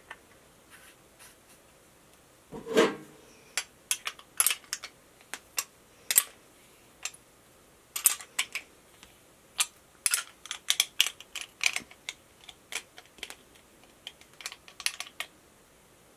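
Irregular sharp clicks and light scrapes of a metal fitting and a combination wrench being handled against a clear plastic flow-indicator block, with one louder, longer scrape about three seconds in.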